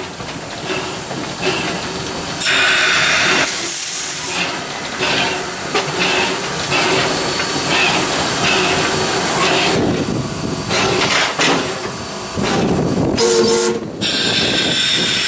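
Steam hissing loudly in the cab of a 1909 steam locomotive, stepping up a couple of seconds in and dipping briefly near the end.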